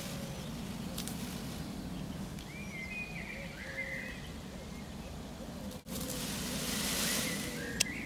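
Quiet farmyard sound: hens murmuring softly, with faint high chirps a few seconds in. A rustling hiss rises in the second half, ending in a single sharp click.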